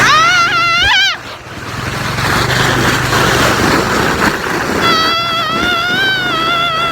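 A person screams at a high pitch twice: a short wavering scream in the first second, then a long held scream from about five seconds in. Underneath is a steady rushing noise with a low hum, fitting a four-wheeler running through snow.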